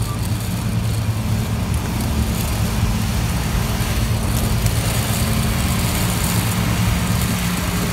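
Steady machinery hum on an airport apron beside a parked Fokker 70 jet: a deep, even drone with an airy hiss over it.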